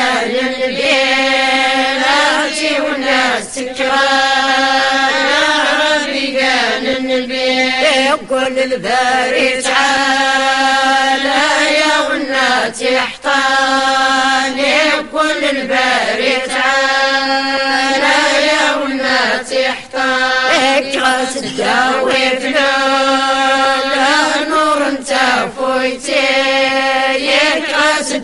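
A group of women singing amdah, devotional praise songs, together in unison, in long sustained phrases with brief breaths between them.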